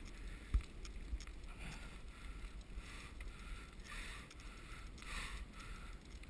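Wind rumbling on an action camera's microphone and wheels rolling on asphalt as a dog pulls a rider along, with a single thump about half a second in.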